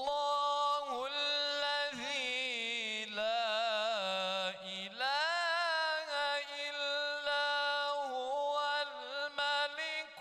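A man's solo Qur'an recitation in melodic tajweed style, drawn out in long ornamented notes with a wavering pitch and only brief breaks for breath. The melody dips lower about four seconds in, then climbs again.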